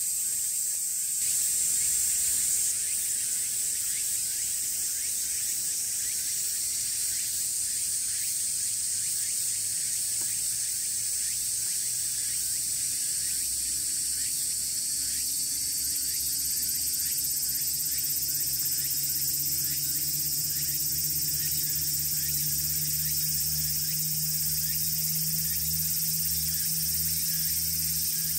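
A chorus of summer cicadas making a dense, steady, high-pitched drone. A faint low hum joins in about halfway through.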